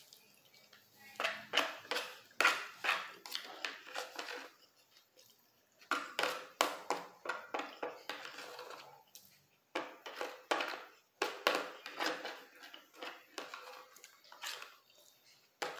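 Close-miked chewing and wet mouth sounds of a person eating rice and barbecue chicken, in three bouts of quick clicks and smacks with short quieter gaps between. A spoon taps and scrapes the plate now and then.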